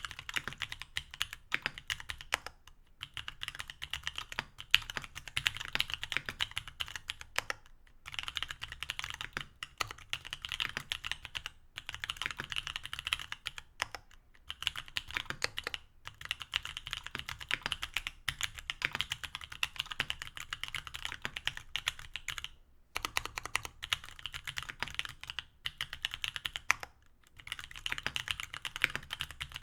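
Mechanical keyboard with stock C³Equalz X TKC Kiwi 67g tactile switches on an aluminium plate, with GMK keycaps, typed on in steady rapid runs of key clacks, with brief pauses between runs.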